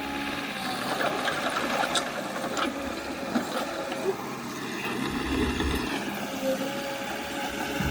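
Diesel engine of heavy earthmoving equipment running steadily, with a few short sharp clicks about two seconds in.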